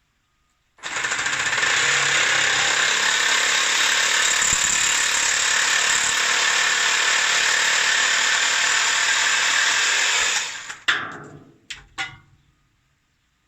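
A power tool cutting through a pipe, running steadily and loudly for about ten seconds before it winds down, followed by a few sharp clicks.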